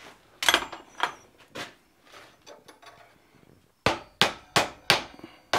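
Hammer blows on a hot cut chisel driven into the fold of red-hot sheet steel held in a vise, starting to pry the fold open. Three strikes, a pause of about two seconds, then five quicker blows, about three a second.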